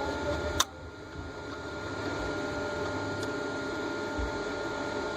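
A single sharp click, then a steady mechanical hum.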